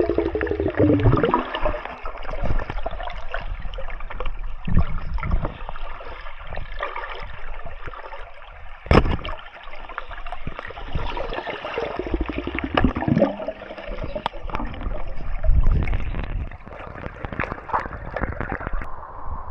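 Water gurgling and splashing, with many scattered clicks and knocks and a sharp strike about halfway through.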